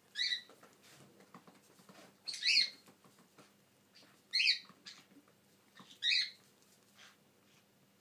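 Galah drinking strawberry milk from a pint glass: four short, loud slurps about two seconds apart, with faint small clicks between them.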